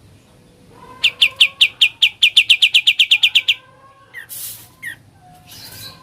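A kapas tembak songbird giving its 'ngebren' burst: a rapid string of about seventeen short, sharp high notes that speeds up and stops abruptly, followed by two short harsh hissing rasps.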